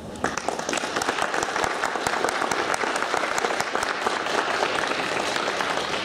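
Audience applauding, starting a moment in and thinning out near the end.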